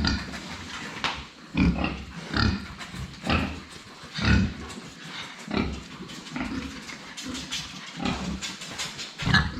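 Pigs making short, abrupt sounds in quick succession, about three every two seconds, with the loudest near the middle.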